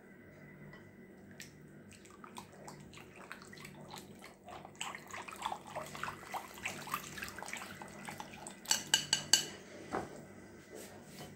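A fork whisking liquid in a ceramic bowl: quick, irregular clicks of metal against the bowl. About nine seconds in come several loud, ringing clinks of the fork against the bowl, then a single knock.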